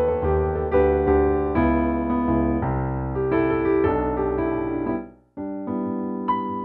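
Background solo piano music. It fades out about five seconds in and starts again a moment later.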